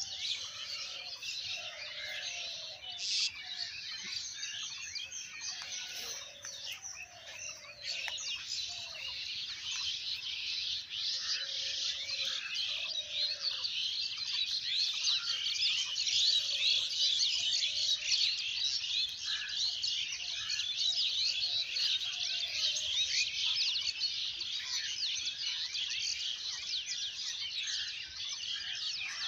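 Dense outdoor chorus of many small birds chirping rapidly and without pause, a little louder from about ten seconds in, with scattered lower calls mixed in.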